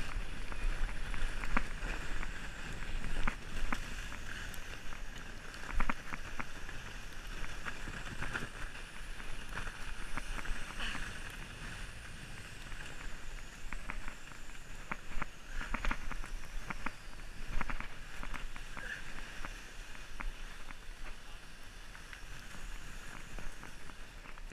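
Sled sliding down a snowy slope: a steady scraping hiss of the sled over the snow, broken by frequent knocks and clicks as it hits bumps.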